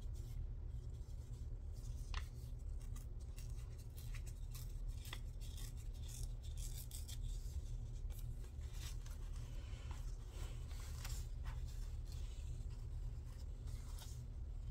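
Paper being handled and rustled, with scattered light crinkles and clicks, over a steady low hum.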